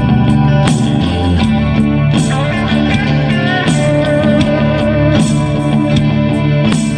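Background music led by a plucked guitar, playing steadily with repeated picked notes.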